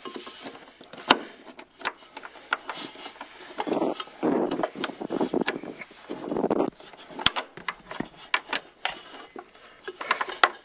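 Scattered sharp metallic clicks and rattles as Fox-body Mustang parking brake cable ends and their equalizer are worked into a steel bracket by hand. From about four to nearly seven seconds in there is a stretch of rubbing and scuffing.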